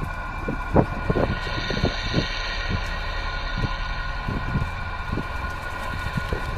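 Irregular knocks and rustles of someone moving through ivy and undergrowth while handling the camera, over a steady whine made of several fixed tones and a low rumble.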